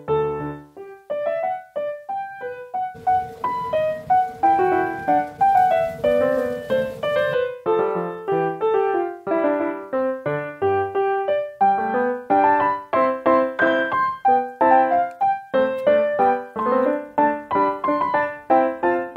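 Background piano music: a melody of short, quick notes that grows busier in the second half.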